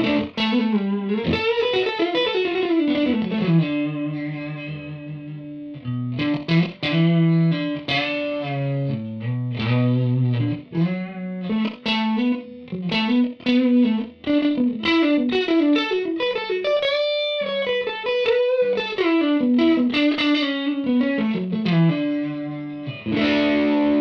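Suhr Classic Pro electric guitar on an overdrive tone through a Line 6 POD HD500, playing a single-note lead with fast runs, string bends and vibrato. It ends on a chord left ringing near the end.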